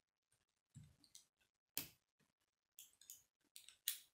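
Plastic K'nex rods and connectors clicking as they are handled and pressed together, a scatter of small clicks with two sharper snaps, one near two seconds in and one just before the end.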